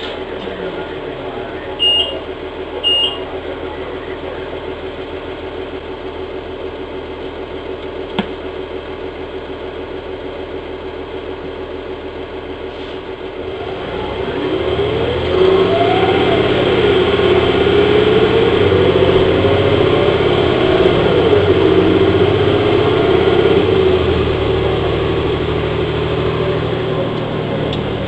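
Transit bus's Cummins ISL diesel engine idling steadily, with two short high beeps about a second apart near the start. About halfway through the engine speeds up and the bus pulls away, the pitch climbing and dropping as the Allison B400R automatic transmission shifts up, then climbing and dropping again.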